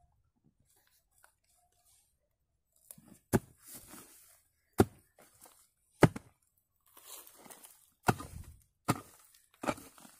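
A long-handled hoe chopping into earth six times, sharp thuds about a second apart, with soil and dry pine needles rustling and scraping between strokes. The first three seconds are nearly quiet.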